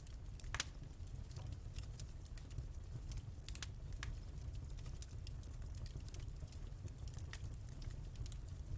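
Wood fire crackling in a fireplace: irregular sharp pops and snaps over a low steady rumble, with the strongest pop about half a second in.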